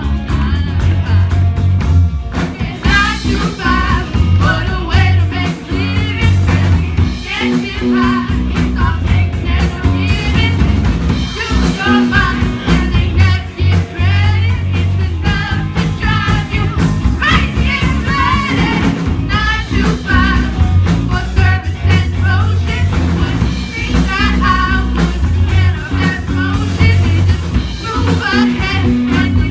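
Live rock band playing a song with sung vocals over drums and bass.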